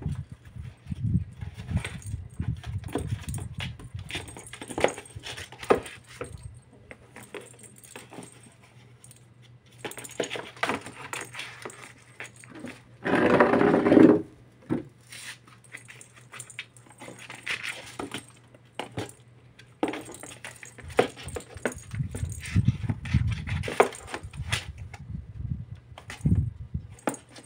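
Kitten batting a perforated plastic jingle ball around a cardboard box: the bell inside jingles and rattles, and the ball and paws scuff and knock on the cardboard in irregular spurts. About halfway through, a louder pitched sound lasts about a second.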